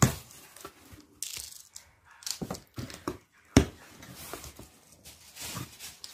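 Cardboard box flaps being pulled open and handled: irregular scraping and rustling of cardboard with a few sharp knocks, the loudest right at the start and about three and a half seconds in.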